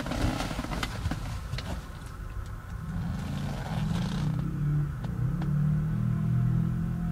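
Scattered clicks and rustles of handling, then from about three seconds in a steady low hum of the 2005 BMW X5 E53's engine running.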